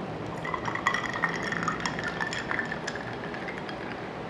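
Banana milk poured from a small bottle into a glass tumbler: liquid splashing into the glass with a steady ringing tone and many small clinks, fading after about three seconds.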